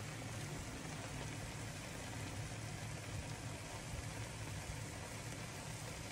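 A pot of chicken-feet adobo simmering on the stove: a steady, low bubbling hiss with a faint hum underneath.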